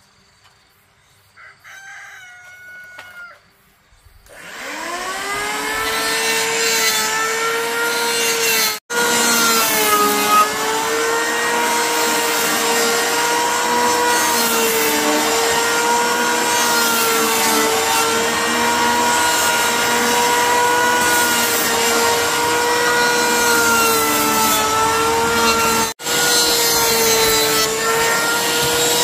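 Corded electric hand planer spinning up about four seconds in, its pitch rising to a steady whine, then shaving along a log with a constant rasping hiss. It drops out for a moment twice. Before it starts, a rooster crows briefly.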